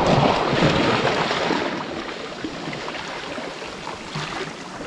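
Small sea waves washing and fizzing over seaweed-covered rocks at the water's edge, loudest at the start and easing off.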